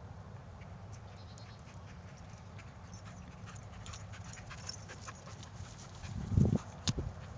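A brindle dog running up close and panting, with scattered light clicks as it nears. Near the end come two loud low thumps as the camera is jostled.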